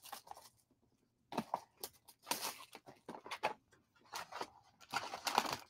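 Plastic shrink wrap crinkling and tearing as it is stripped off a trading-card hobby box, in scattered short rustling bursts.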